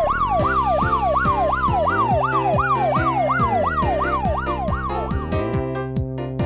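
Police siren sound effect in a fast yelp, about three up-and-down sweeps a second, over upbeat children's music with a steady drum beat. The siren stops about five seconds in and the music carries on.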